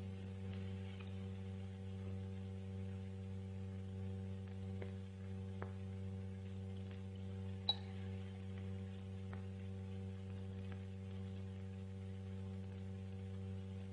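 Steady low electrical hum with faint hiss. A few faint ticks sound around the middle, and one sharper small click comes about eight seconds in.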